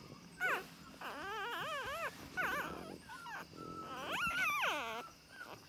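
Newborn French bulldog puppies whimpering: four high, wavering cries, one of them about a second long, and the last, near the end, rising and then falling in pitch.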